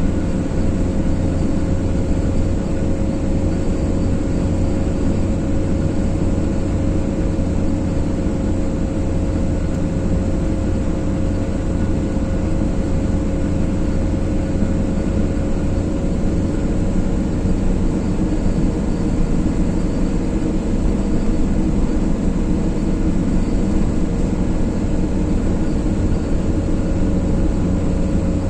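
Steady road and engine noise of a car driving at a constant speed: an even, unbroken rumble with a faint steady hum running through it.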